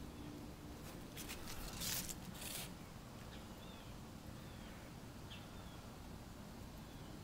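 A few brief rustling noises in quick succession from about a second in, followed by several faint, short, falling high chirps over a low steady outdoor background.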